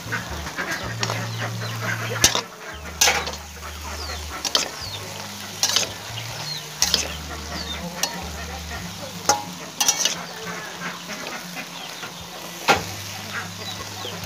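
Frog meat and greens sizzling in a wok as a spatula stir-fries them, with sharp scrapes and knocks of the spatula against the pan every second or so.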